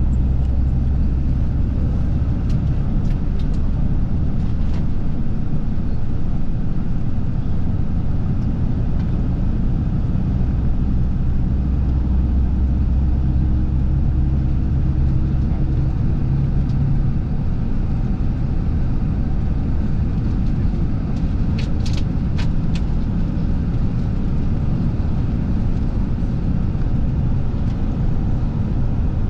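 Steady low rumble of a running vehicle engine, with a few faint clicks early on and again about two-thirds of the way through.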